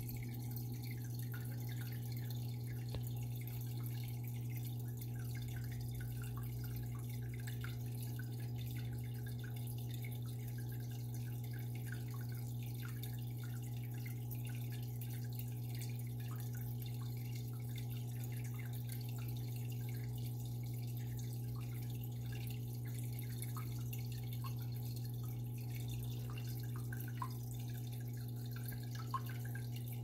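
Home aquarium: a steady low hum from its pump, with water trickling and dripping over it and a couple of slightly louder drips near the end.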